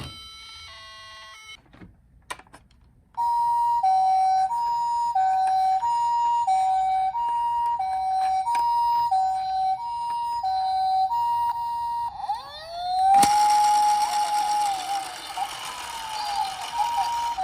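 Toy ambulance's electronic two-tone siren, a high and a low note alternating about every two-thirds of a second in the Japanese pee-po pattern. It opens with a short falling chime and a few clicks. Near the end it switches to a rising wail that holds over a rush of noise, then goes back to the two-tone.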